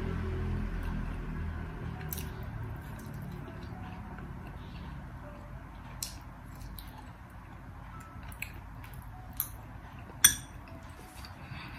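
Metal fork clinking against a glass bowl now and then, a handful of light clinks with the loudest about ten seconds in. Background music fades out over the first couple of seconds.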